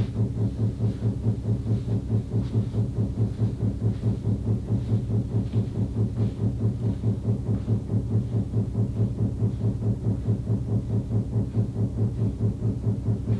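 Rapid, steady banging in the walls, coming through the wall from next door: an even beat of about three to four knocks a second over a low hum.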